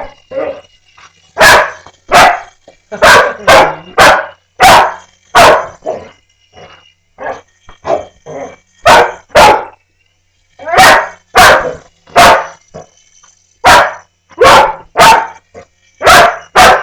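A dog barking over and over in quick runs of loud barks, with a brief pause about ten seconds in. The dog is barking at a small toy helicopter flying near it.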